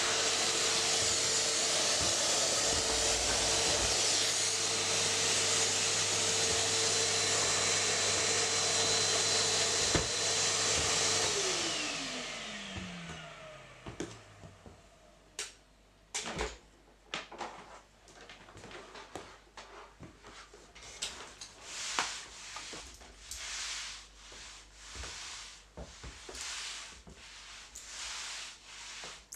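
Vacuum cleaner running with a steady whine, switched off about eleven seconds in, its motor winding down in falling pitch over the next few seconds. After that come a few sharp clicks and knocks, then repeated rubbing strokes of a mop on the floor, about one a second.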